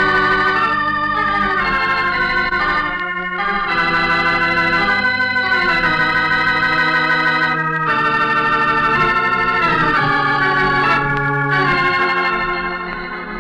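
Organ music: slow, held chords that change every few seconds, the radio show's closing theme, growing quieter near the end.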